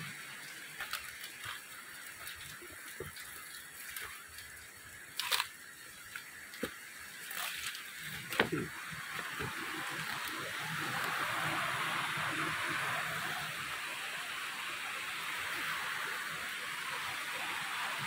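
Scattered knocks and rustles of footsteps and phone handling on a leaf-littered forest trail, with a few sharper knocks. From about halfway a steady rush of running water comes in and holds.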